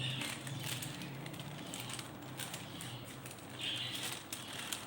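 Wet baking parchment being laid and pressed over a baking tray: soft rustling and light crinkling with scattered small taps, twice rising to a brief louder rustle, over a low steady hum.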